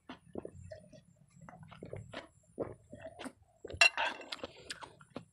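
A person drinking from a glass, with short wet gulping and mouth sounds, then the glass is set down on the table with a clink about four seconds in.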